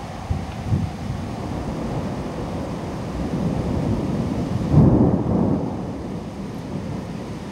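Heavy downpour rain falling steadily, with a low rumble of thunder that swells to its loudest about five seconds in.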